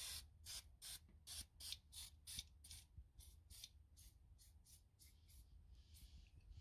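WD-40 aerosol can spraying in a faint, rapid series of short squirts, about three a second, after a longer opening burst.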